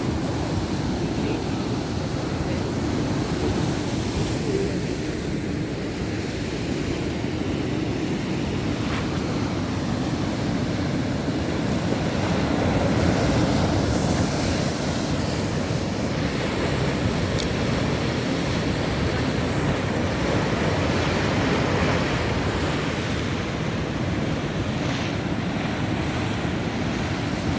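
Rough sea: heavy surf breaking and churning continuously, with wind rumbling on the microphone. It swells a little louder about halfway through and again later on.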